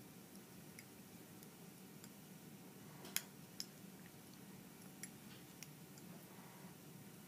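Near silence with a few faint, sharp clicks of a metal dental instrument against braces brackets and wire as the elastics and archwire are taken off, the loudest about three seconds in, over a low room hum.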